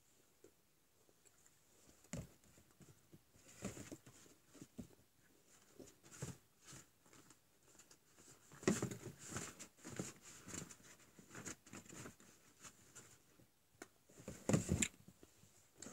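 Close handling noises: soft rustles, taps and knocks of objects being moved about, with louder bursts about nine seconds in and again near the end.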